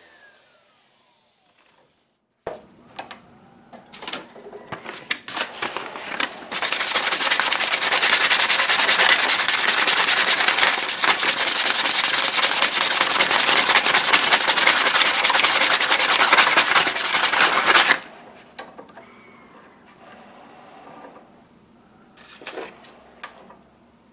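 Sandpaper rubbed by hand along the wooden handle of an old brace drill. A few scattered scrapes and taps come first. Then a long run of fast, even sanding strokes starts about a quarter of the way in and cuts off suddenly about three-quarters through, followed by faint handling knocks.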